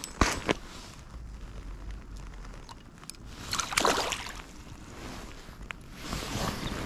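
Water splashing and sloshing in an ice-fishing hole as a hooked brook trout thrashes at the surface, loudest about halfway through, with a couple of sharp clicks near the start.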